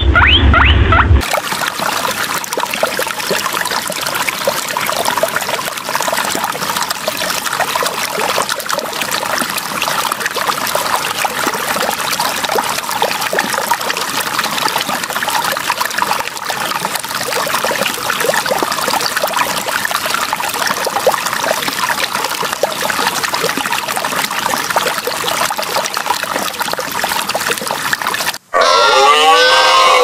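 Water trickling steadily. A short pitched animal-like call is heard at the very start, and another begins near the end.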